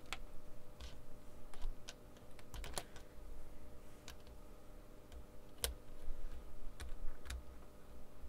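Irregular small clicks and taps of plastic and metal electronic components being handled and set against a circuit board on a desk, a couple of them sharper about three and five and a half seconds in.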